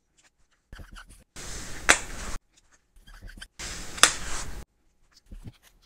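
Two small label cards set down on a board one after the other, each with a short scratchy slide and one sharp click, about two seconds apart.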